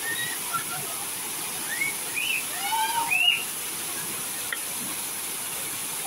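Steady splashing hiss of a curtain fountain, water pouring from a mushroom-shaped canopy into a shallow pool. About two seconds in, a short run of high chirping sounds rises above the water for about a second and a half.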